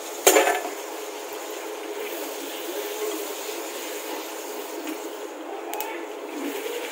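A puri deep-frying in hot oil in a small iron kadhai, the oil sizzling steadily as a slotted spoon presses it. A sharp click sounds about a quarter of a second in.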